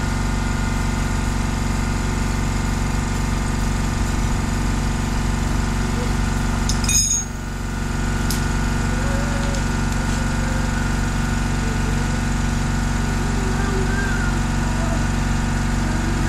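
A 30-litre silent air compressor running with a steady hum, dipping briefly about seven seconds in.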